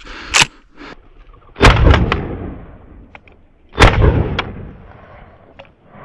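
Two shotgun shots about two seconds apart during a partridge hunt, each echoing and fading over a second or so. A shorter, sharper snap comes about half a second in.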